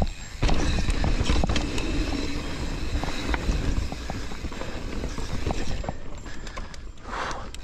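Mountain bike riding fast over a rough, rooty trail: tyres rolling over roots and rocks and the bike rattling and clattering with many sharp knocks, over a low wind rumble on the action camera's microphone. A short hiss comes about seven seconds in.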